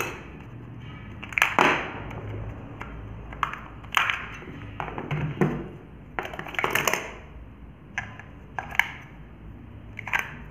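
Short plastic clicks and rattles of remote controls being handled: a battery cover coming off and AA batteries being taken out of one remote and pressed into another. The clicks come irregularly, about a dozen of them.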